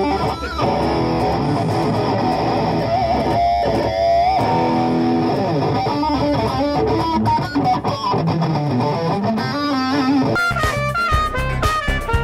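Electric guitar playing through an amplifier: held notes with a wavering vibrato note about three to four seconds in, then a quick run of notes near the end.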